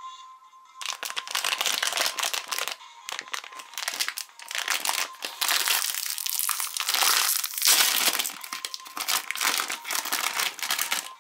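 Foil-lined plastic snack wrapper being crinkled and torn open by hand: loud, continuous crackling starting about a second in, with brief lulls between handfuls.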